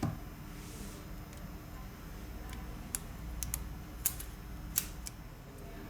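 A knock, then a handful of sharp, separate clicks and taps about halfway through, the sound of a phone and small repair tools being handled on a hard workbench.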